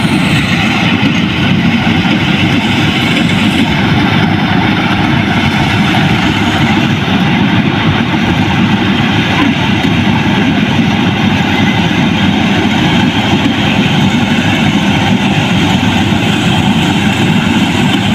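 Combine harvester engine running steadily at a constant speed, loud and unbroken.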